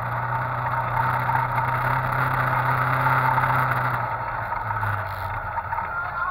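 Side-by-side UTV engine running under way, with a steady rushing of wind and trail noise. The engine note drops in pitch about four seconds in as the machine eases off.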